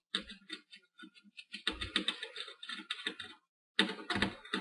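Small precision screwdriver backing a screw out of a laptop's plastic case: quick irregular clicks and scrapes of the bit in the screw head and the screw turning in its boss, with a couple of dull handling knocks on the case.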